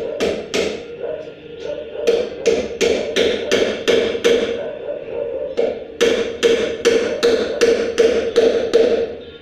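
Hammer blows on a solid narra wood table base, sharp knocks at about three a second in runs, pausing around the middle, as the parts are driven together.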